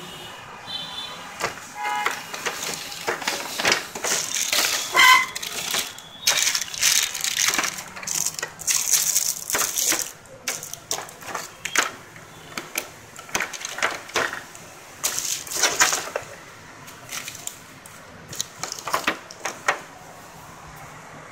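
Plastic packaging bags crinkling and rustling in irregular bursts as wrapped accessories are handled, densest in the first ten seconds and sparser after.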